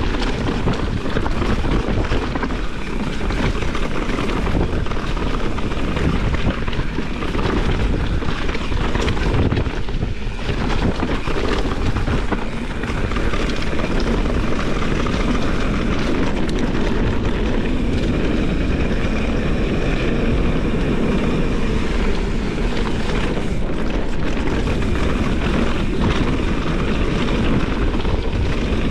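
Mountain bike descending a dirt forest trail, heard from a handlebar-mounted camera: steady wind rush on the microphone mixed with the continuous rumble and rattle of the bike and tyres over the rough ground.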